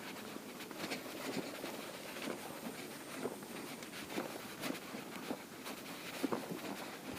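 Irregular rustling and light knocks of fishing gear being handled and set down, with footsteps on a wooden jetty.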